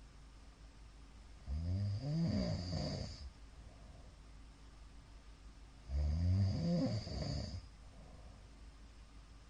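A middle-aged man snoring in his sleep: two long snores, each about a second and a half, some four seconds apart.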